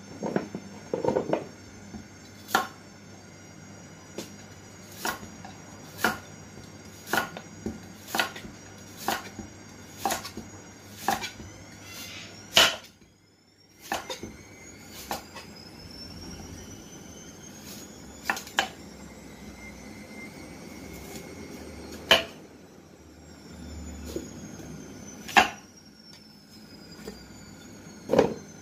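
Cleaver chopping carrots on a chopping board: sharp knocks about once a second, then further apart after a brief drop-out about halfway through.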